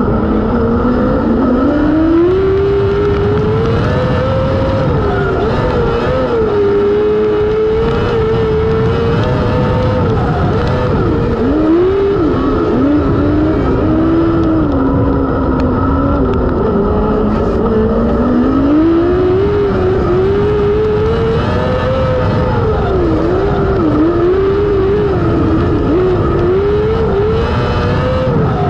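Non-wing micro sprint race car's 600cc motorcycle engine at racing speed, heard close from an onboard camera, its pitch climbing and falling again and again as the throttle is worked around the dirt oval.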